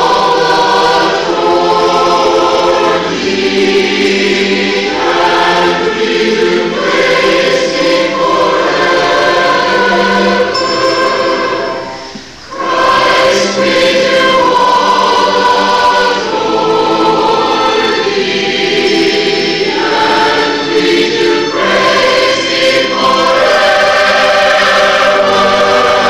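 Large mixed church choir singing with orchestral accompaniment of strings and timpani. The sound drops away briefly about halfway through, then the full choir comes back in.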